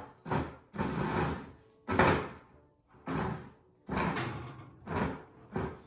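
Music made of a run of sharp, noisy hits, about eight in six seconds, each fading quickly.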